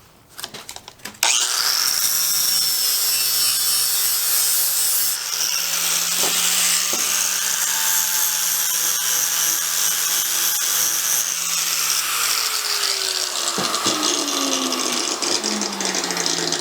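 Electric power tool running under load, coming on about a second in with a loud steady grinding noise and a high whine; its low motor hum slides down in pitch near the end as it slows.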